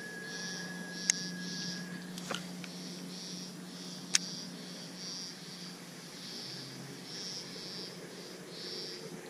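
Insects chirping in high pulses about twice a second, over a low steady hum. Two sharp clicks about one and four seconds in stand out as the loudest sounds.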